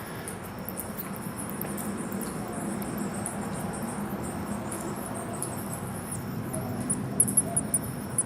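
Colony of bats roosting in the bridge's expansion slots, chittering with many short, irregular high-pitched squeaks over a steady background hiss.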